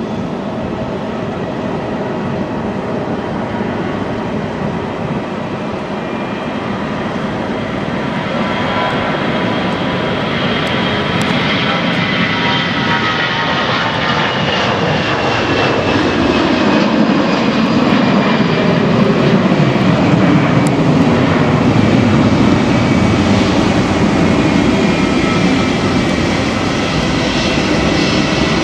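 Airbus A321-212 airliner's twin CFM56 turbofan engines at takeoff thrust: the jet noise grows louder as the aircraft rolls and lifts off, and several whining engine tones slide down in pitch as it passes, then it runs on loud and steady as it climbs away.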